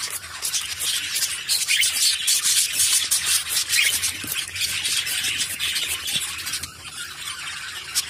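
Water spray hissing from a spray bottle onto two cockatiels in rapid repeated squirts, mixed with the rustle of wet feathers as a bird ruffles and flaps its wings.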